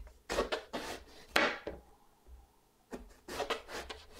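Chef's knife slicing through a whole eggplant and striking the cutting board: a few crisp cuts, the loudest about a second and a half in, a short pause, then more cuts about three seconds in.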